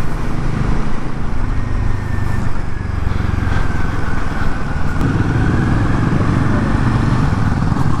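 Royal Enfield Himalayan 450's single-cylinder engine running steadily as the motorcycle is ridden along, with a continuous low rumble of engine and road noise.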